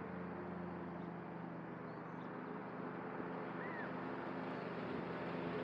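Cub Cadet ZTS1 zero-turn mower engine running steadily at a distance while mowing tall grass and weeds, slowly getting louder as it approaches. A faint short chirp is heard about three and a half seconds in.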